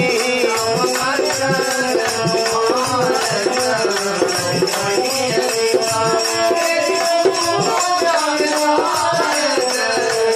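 Instrumental interlude of a Hindi devotional bhajan: an ornamented melody that bends between notes, over a steady rhythm with a shaker-like rattle.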